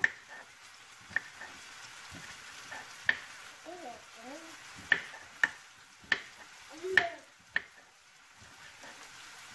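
Kitchen knife chopping pineapple on a wooden cutting board: about eight sharp, irregularly spaced knocks of the blade on the board, over the steady low sizzle of chicken pieces frying in a pan.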